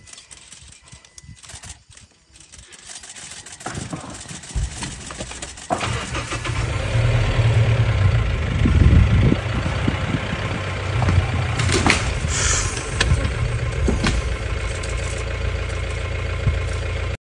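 A vehicle engine starts up about six seconds in and then runs steadily, with a few sharp knocks over it; before it, only faint scattered clicks.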